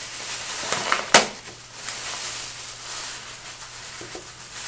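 Clear plastic packaging crinkling and rustling as it is handled, with one sharp, loud crackle about a second in.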